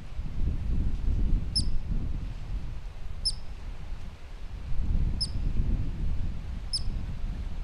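Columbian ground squirrel calling: four short, sharp, very high chirps, each with a quick downward flick, spaced about one and a half to two seconds apart, over a low steady rumble.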